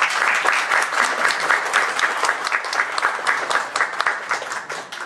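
Audience applauding, a dense run of clapping that dies away near the end.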